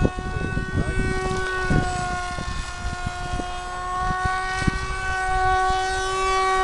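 The motor and propeller of a scratch-built twin-boom pusher RC plane in flight, a steady pitched drone holding its note, with wind rumbling on the microphone.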